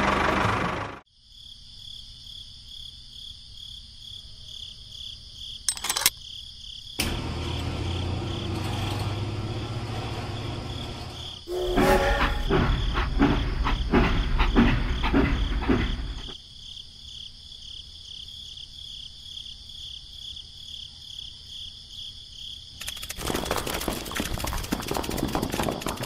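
Crickets chirping steadily throughout. About halfway through, a low rumble builds into a louder rumble with rhythmic clacks as a battery toy steam train runs along plastic track, and a dense rattling clatter fills the last few seconds.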